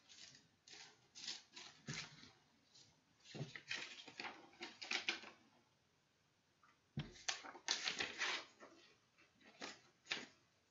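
Paper inserts from a CD album handled and unfolded, rustling and crinkling in short irregular bursts, with a pause of about a second and a half near the middle.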